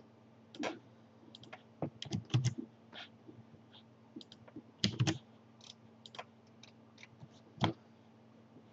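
Computer keyboard keys and mouse buttons clicking irregularly, about fifteen short clicks with uneven gaps, over a faint steady low hum.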